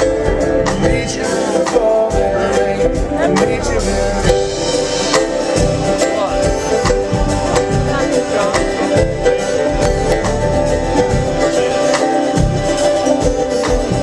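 Live bluegrass band playing an instrumental passage with fast picked strings, after the singing has stopped.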